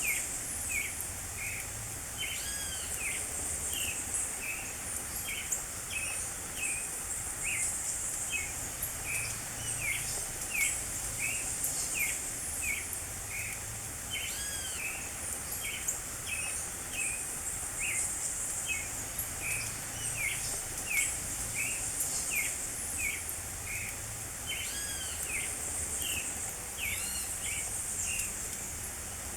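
Creamy-bellied thrush singing: a long, unbroken string of short clear notes, about two or three a second, some rising and falling in little arcs. Behind it a steady high hiss swells and fades every few seconds.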